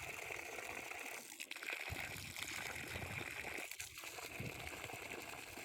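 Water running in a steady trickling hiss, as when watering a tree.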